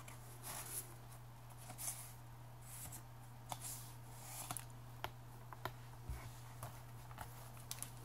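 Faint paper handling: journal pages and paper tags rustling and sliding as they are pulled from pockets and turned, in soft scattered swishes with a few small ticks, over a steady low hum.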